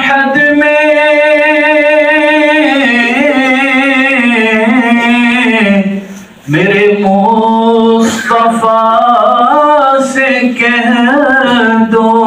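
A man singing a naat solo, without instruments, drawing out long ornamented notes in two phrases with a short break for breath about six seconds in.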